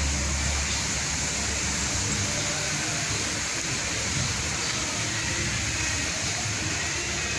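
Steady outdoor background noise, an even hiss-like haze with a low rumble in the first second.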